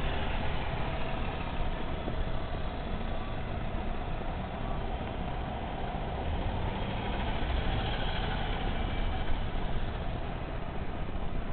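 A car running, with a steady low engine and road rumble.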